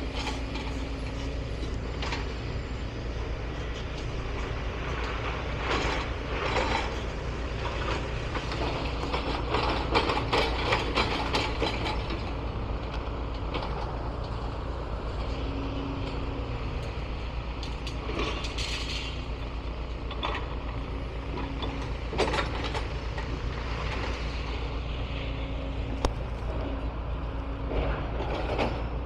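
Heavy machinery on a demolition site: a steady diesel engine rumble with bursts of clattering and scraping as rubble and materials are sorted, heaviest around the middle and in a few later knocks.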